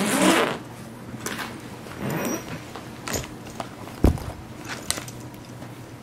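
Socks being pulled on over bare feet: a swish of fabric, loudest right at the start, then small rustles and a short thump about four seconds in.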